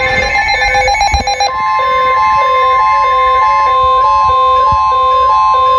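NOAA Weather Radio warning alarm tone: a steady single-pitch tone near 1 kHz that starts about a second and a half in and holds, ahead of a severe thunderstorm warning. It plays over background music with a repeating stepped melody, and a short rapid buzzing comes just before the tone.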